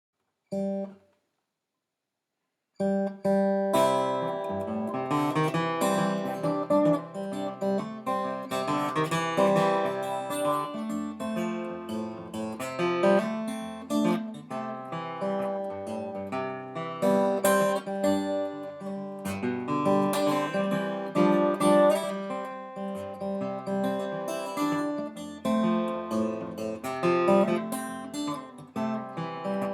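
Acoustic guitar playing the instrumental intro to a blues song: a single note about half a second in, a short pause, then continuous plucked playing from about three seconds in.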